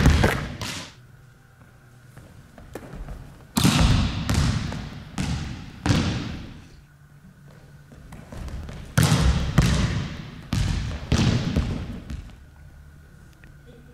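A volleyball spiked and then bouncing on a wooden gym floor, each sharp smack ringing on in the hall's echo. The hits come in three bunches: one right at the start, one about three and a half seconds in, and one about nine seconds in.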